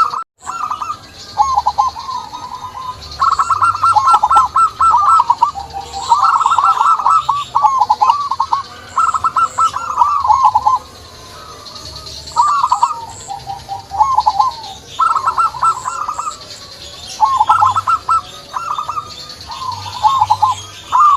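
Several zebra doves (perkutut) cooing, their rapid staccato phrases repeating and overlapping, with fainter high chirps from smaller birds behind them. The sound cuts out for a moment just after the start.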